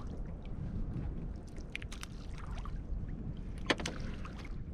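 Water lapping against the hull of a small open boat over a steady low rumble, with a few light clicks and one sharper knock about three and a half seconds in.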